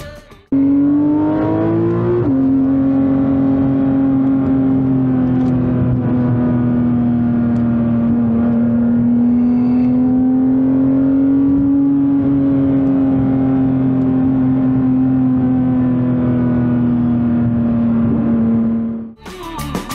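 Porsche 911 GT3 RS's naturally aspirated flat-six heard from inside the cabin: it revs up for about two seconds, drops in pitch at an upshift, then holds a nearly steady drone with slight rises and falls. It cuts off suddenly near the end.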